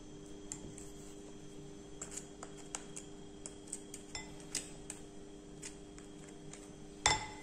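Plastic potato masher pressing and scraping cooked cassava in a ceramic bowl: scattered light taps and clicks as the masher meets the bowl, with a louder knock about seven seconds in.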